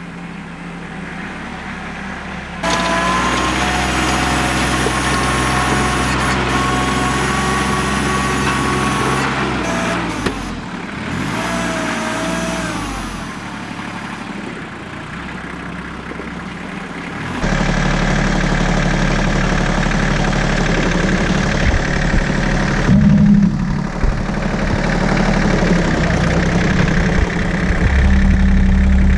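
Loader tractor's engine running while it plows snow with a blade clamped on its bucket. It gets louder about three seconds in, with a faint whine that rises slowly in pitch. A little over halfway through it changes abruptly to a deeper, steady engine sound.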